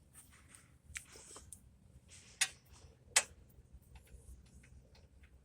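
Scattered metallic clicks and ticks of hand tools working on a brake caliper bracket bolt, with two sharper clicks about two and a half and three seconds in.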